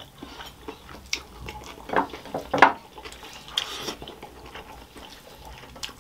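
Close-up eating sounds: a few short, wet mouth smacks and chewing noises at irregular moments, the loudest about two and a half seconds in, over a quiet room.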